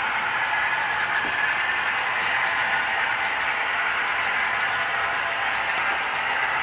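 HO scale model train rolling along the layout track, a steady even running hiss with no change in pace.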